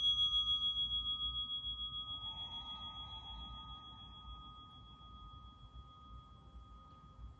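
A singing bowl ringing after a single strike, its two pure tones fading slowly with a steady wavering pulse.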